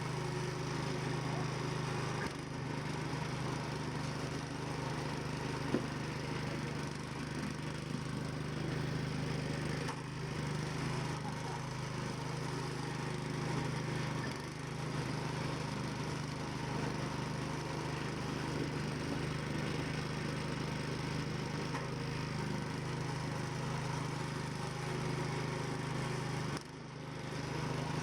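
An engine running steadily with a constant low hum, dropping briefly near the end.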